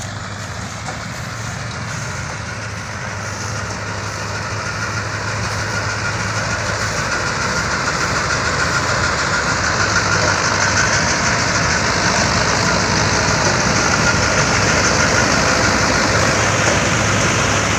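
Tractor-mounted combine harvester on a Mahindra 585 Yuvo Tech Plus diesel tractor running while cutting paddy: a steady engine drone under a dense mechanical rattle from the cutting and threshing works, growing steadily louder as the machine draws closer.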